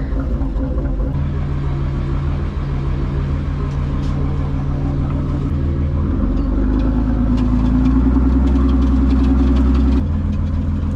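A Dutch barge's diesel engine running steadily. It grows louder about six seconds in and drops back about four seconds later.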